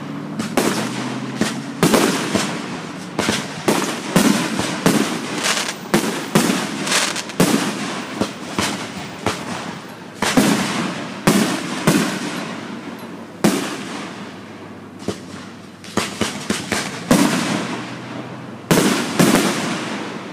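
Aerial firework shells bursting in a rapid barrage: dozens of sharp bangs, each echoing away, thinning briefly about two-thirds of the way through.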